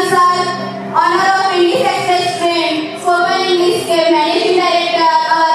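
A child singing, holding long notes that slide from one pitch to the next.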